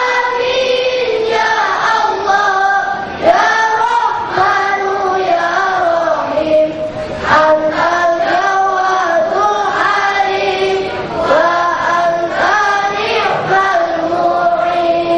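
A large group of boys chanting a devotional song in unison, holding long notes that step up and down in pitch.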